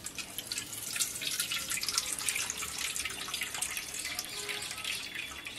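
Water trickling and dripping off soaked puffed rice as a tilted steel bowl is drained, the hand holding back the rice.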